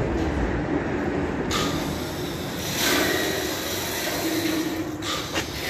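Steady mechanical running noise with a low hum, growing brighter and hissier about a second and a half in.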